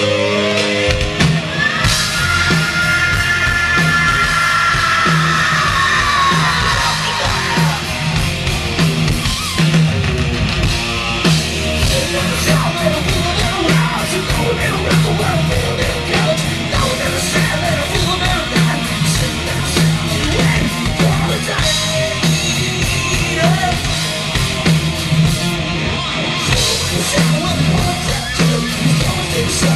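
Live hard rock band playing at full volume: distorted electric guitars, bass and drums under a yelled, sung vocal. About two seconds in a long high note is held for several seconds, then slides down.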